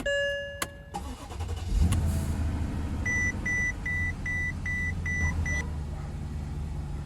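A short chime, then a car engine cranks and starts about a second and a half in and settles into a steady idle. Seven short, evenly spaced warning beeps sound over the idle from about three seconds in. The car starting shows the repaired electronic ignition switch recognising the key.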